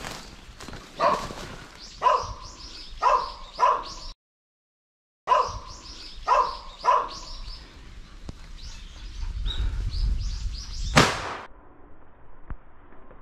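Hunting hound barking in short bursts, roughly once a second, typical of a dog holding a wild boar at bay, with the sound dropping out for about a second midway. A single sharp crack near the end, the loudest sound.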